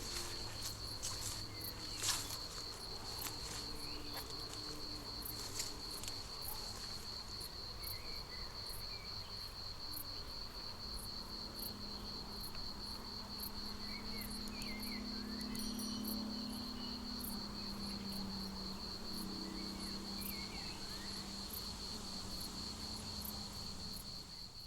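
A cricket trilling continuously, a high, steady, finely pulsed song. Through the middle a bee's low buzz comes and goes.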